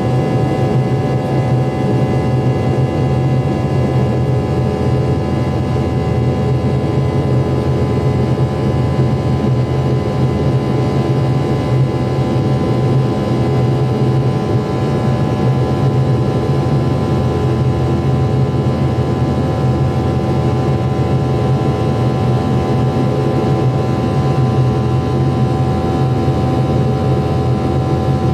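Steady engine drone heard inside the cabin of a McDonnell Douglas MD-88 in flight, from its two rear-mounted Pratt & Whitney JT8D turbofans: a loud, even rush with a strong low hum and several constant tones that neither rise nor fall.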